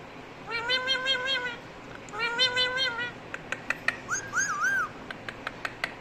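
Indian ringneck parakeet calling: two long, drawn-out calls of about a second each. They are followed by a string of sharp clicks, a short wavering whistle and more clicks.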